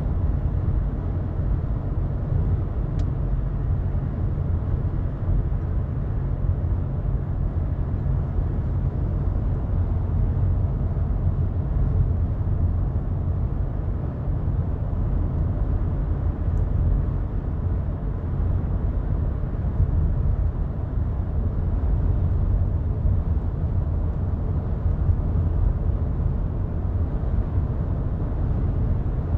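Steady low rumble of a car being driven, heard from inside the cabin: engine and road noise, even throughout.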